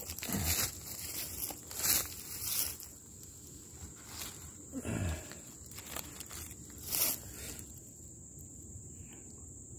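Crunching footsteps in dry leaf litter, a few separate steps, over a faint steady high insect drone; about five seconds in a short sound drops steeply in pitch.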